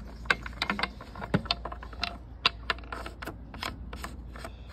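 Metal clicks and knocks from hands handling a 1972 Homelite Super XL chainsaw and its metal caps, coming irregularly several times a second.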